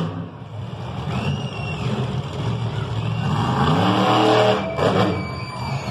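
Monster truck engine revving hard, rising in pitch about three seconds in as the truck pulls up into a wheelie.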